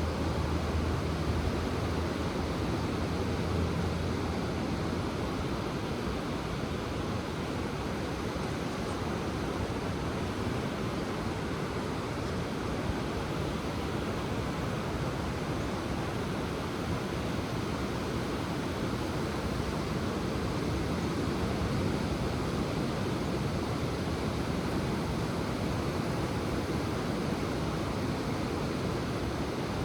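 Ocean surf washing steadily onto the shore, an even rushing noise. A low hum sits under it for the first few seconds, then fades.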